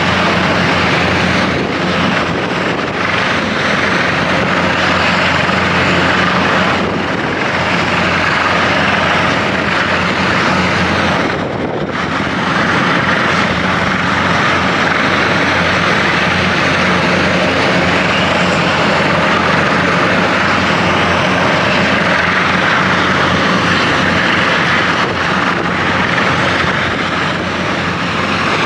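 Large helicopter running on the ground with its main and tail rotors turning: a steady, loud turbine and rotor noise with no change in pitch.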